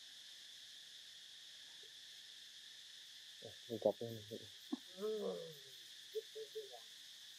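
Insects droning steadily in the forest. A little past halfway there is a quick run of short calls, one falling in pitch, then a few brief chirps.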